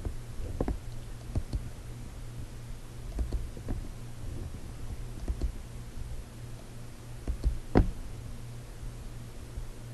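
Scattered light clicks and small knocks of a computer mouse being clicked and moved on a desk while drawing, with one louder click about eight seconds in, over a low steady hum.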